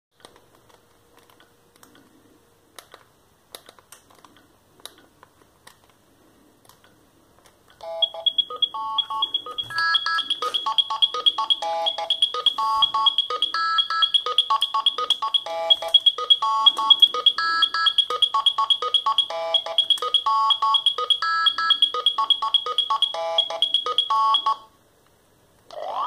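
Philips Fisio 620 mobile phone playing one of its built-in ringtones through its small speaker: an electronic beeping melody with a fast high tick running beneath it. It starts about eight seconds in, after a few faint keypad clicks, and stops abruptly near the end, just before a new tone with a sliding pitch begins.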